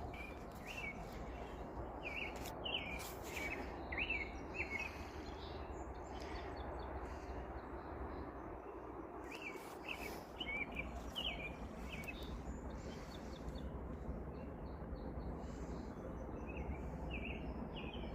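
Small birds chirping in short repeated notes, in three spells, over a steady low background noise.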